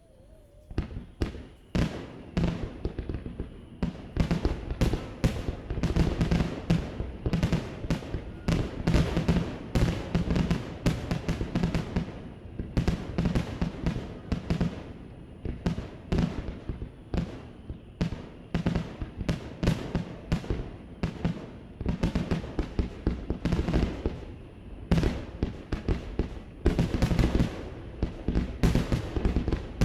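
Aerial fireworks bursting: a few separate bangs with echoes, then from about four seconds in a dense, rapid barrage of many bangs a second.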